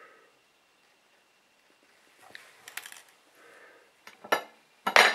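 Small hard objects being handled on a wooden desk: scattered light clicks and knocks from about two seconds in, ending in two sharp, loud clicks near the end.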